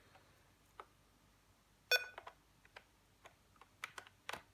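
Scattered light clicks and taps, about ten in all. The sharpest comes about two seconds in, and a quick cluster follows near the end.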